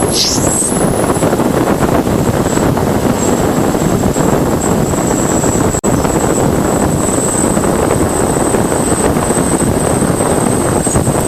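Voyager 1 Plasma Wave Subsystem signals from Jupiter's magnetosphere played back as audio: loud, steady rushing static under a thin, high steady tone. A short falling whistle sounds right at the beginning, and the signal drops out for an instant about six seconds in.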